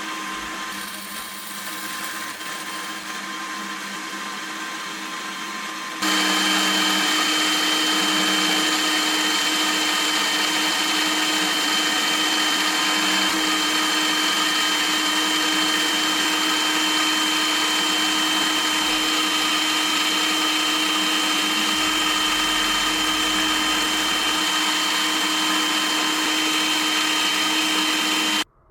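Manual milling machine running steadily with its cutter working, a constant whine over a noisy hum. It jumps louder about six seconds in and stops abruptly just before the end.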